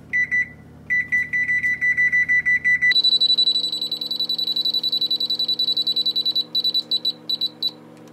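Electronic beeps from a Whirlpool electric range's control panel as a key is held to step the timer up, several short beeps a second. The beeps are higher-pitched from about three seconds in, and the run breaks into a few separate beeps near the end.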